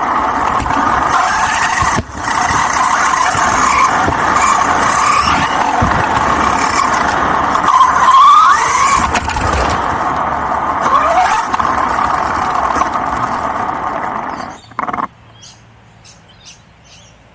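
Remote-controlled car driving over a dirt BMX track, heard from a camera mounted on the car: its motor whines over a loud rush of tyre and ground noise, the whine rising in pitch about eight seconds in. The noise cuts off suddenly near the end, leaving quiet with a few faint ticks.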